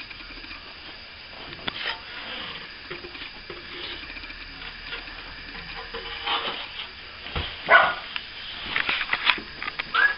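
A dog barking, loudest about three quarters of the way through, amid scattered light clicks and knocks.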